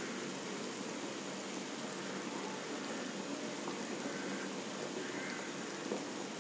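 A pan of tamarind gravy at a full boil: a continuous, even bubbling hiss.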